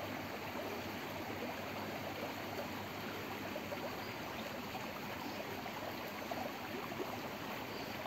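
Steady rushing of a stream's running water, an even hiss with no distinct sounds standing out.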